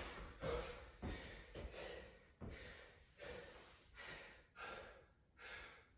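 A man breathing hard and fast, catching his breath after an all-out effort on an air bike, with about eight heavy breaths that slowly grow quieter.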